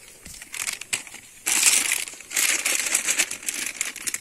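Plastic pasta packet crinkling and crackling as it is worked and torn open with wet hands, in uneven bursts that get louder about a second and a half in.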